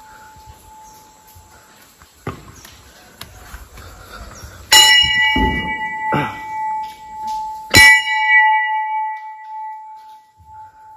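Hindu temple bell struck twice, about three seconds apart, each strike ringing on and slowly fading. A single knock about two seconds in.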